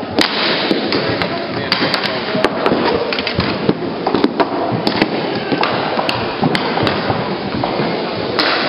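Inline hockey sticks clacking against each other and the puck, with inline skate wheels rolling on a hard floor, echoing in a large hall. Sharp knocks come many times and irregularly over a steady din.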